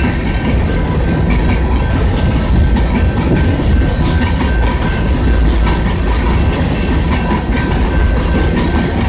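Freight train's open-top hopper cars rolling past close by: a steady, loud rumble and rattle of steel wheels on the rails, with a faint high steady tone over it.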